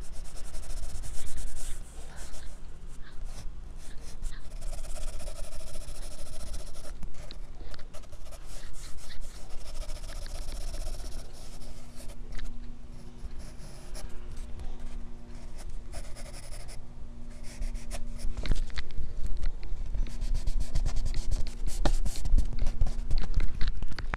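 Graphite pencil sketching and shading on paper in quick, scratchy strokes that grow faster and denser near the end.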